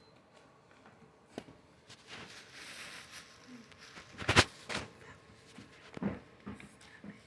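Handling noises from a small gadget being tried out: scattered clicks and knocks with a brief soft hiss, the loudest knock about four seconds in.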